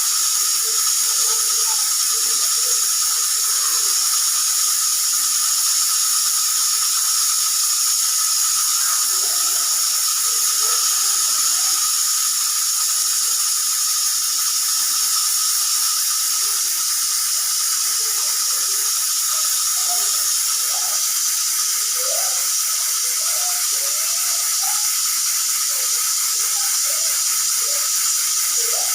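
Pressure cooker on the stove giving off a steady hiss of steam, without the whistle going off.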